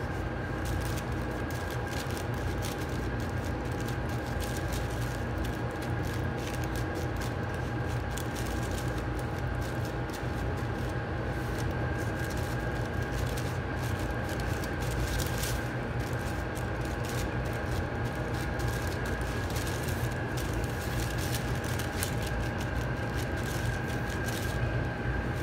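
Steady mechanical hum with a constant high whine, over light crinkling of a plastic bag and soft patting as gloved hands press minced chicken into a round burger mould.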